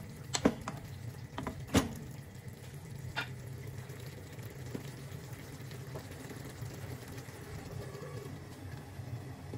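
Tomato-based stew simmering in a wok, with a wooden spatula knocking and scraping against the pan several times in the first few seconds, over a steady low hum.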